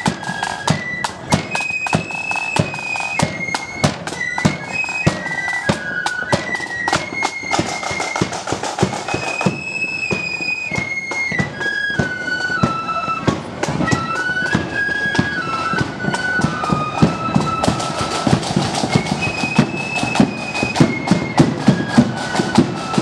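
Marching flute band playing a tune: the flutes carry a high melody over the steady beat of side drums and a bass drum. The drum strokes grow louder near the end.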